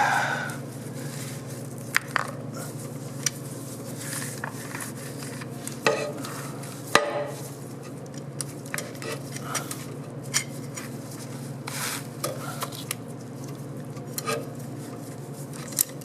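Metal internal parts of a 700R4 automatic transmission clinking and knocking as they are handled and pulled out, with scattered light clicks and one sharper knock about seven seconds in, over a steady low hum.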